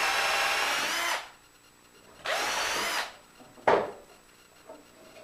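Milwaukee M12 cordless drill countersinking a screw hole in wood, in two short bursts. The first stops a little over a second in; the second runs for under a second just past the two-second mark. A sharp click follows near the four-second mark.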